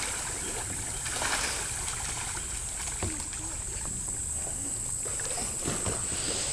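Steady riverside ambience: a low rumble with faint moving water.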